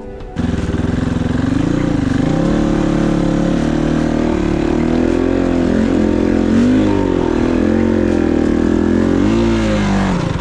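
Kovi 450i Pro enduro motorcycle's single-cylinder engine running under constantly changing throttle, the revs rising and falling again and again. It starts suddenly about half a second in and stops abruptly just before the end.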